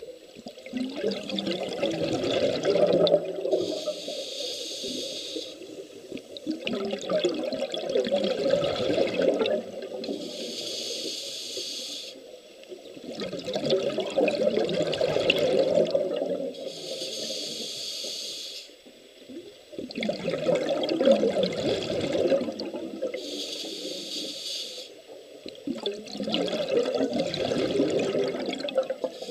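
Open-circuit scuba regulator breathing cycle: five bubbling exhalations of about three seconds each, alternating with a short hissing inhalation through the demand valve, about one breath every six to seven seconds.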